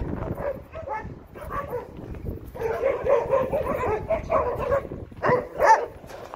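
Several dogs barking behind a fence, many barks and yips overlapping, with a few louder single barks near the end. The dogs are going berserk at a walker passing by, barking to guard their ground.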